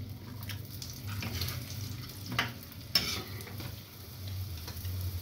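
Food sizzling in a frying pan on the stove while a spatula stirs and scrapes it, with a couple of sharp scrapes about two and a half and three seconds in. A steady low hum runs underneath.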